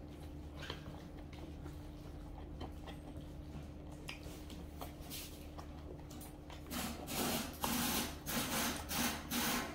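Quiet chewing with faint clicks, then about seven seconds in a run of four or five loud scrapes as wooden chopsticks scrape food from inside a stainless steel lunch container.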